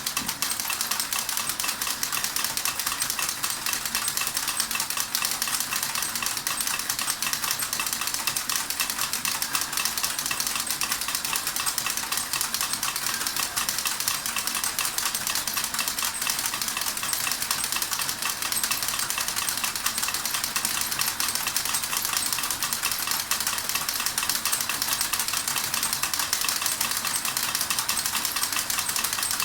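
Model steam engine running with its driven mechanisms, a fast, steady clattering and rattling of many small metal parts.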